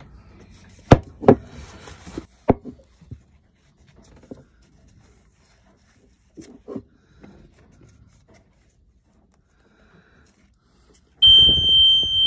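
A few light clicks and knocks of handling at the starter wiring, then mostly quiet. About a second before the end, the engine panel's warning buzzer sounds a steady high beep while the starter cranks the sailboat's inboard engine: the starter now turns over after its corroded solenoid terminals were cleaned.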